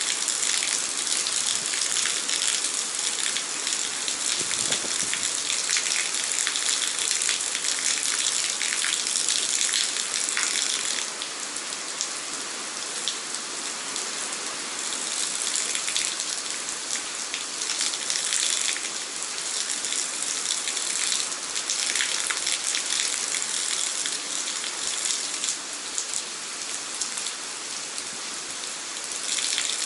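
Steady heavy rain: a dense hiss of falling drops with scattered individual drop ticks, easing slightly about a third of the way in and again later on.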